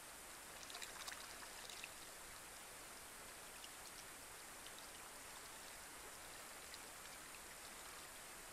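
Faint, steady rain falling on a pond's surface, with a quick cluster of individual drop ticks about a second in and scattered single drops after.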